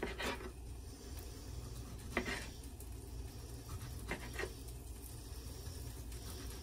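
Kitchen knife slicing through a tomato and knocking on a cutting board, a few separate cuts spread a second or two apart, over a low steady hum.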